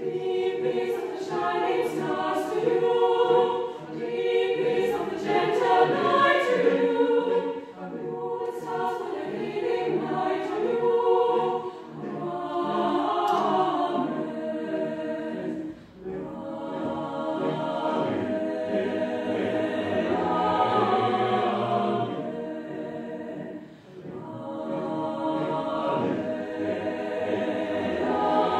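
Mixed choir of women's and men's voices singing a cappella, a gospel song sung in phrases of about four seconds with brief dips between them.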